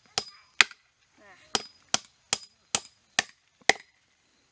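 Hammer driving the nail of a nail-on electric fence insulator into a post: two sharp strikes, a short pause, then six more at a steady two or three a second, each with a brief metallic ring.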